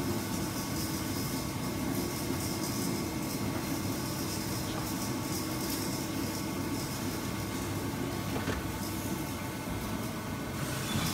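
Steady hum and hiss of an idle industrial welding machine, with a single faint knock about eight and a half seconds in.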